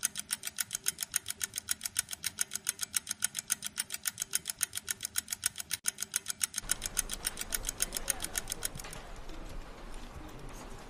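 Clock ticking fast and evenly, about five ticks a second, fading out about nine seconds in. A low steady hum comes in partway through.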